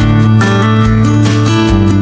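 Background music: strummed acoustic guitar with sustained chords changing about every half second.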